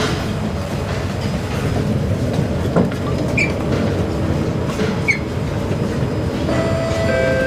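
Singapore MRT train standing at a station with its doors open, giving a steady hum and rumble. A few steady tones come in near the end.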